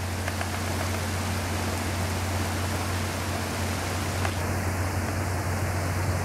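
Rain and hail floodwater rushing, a steady loud hiss, with a steady low hum beneath it.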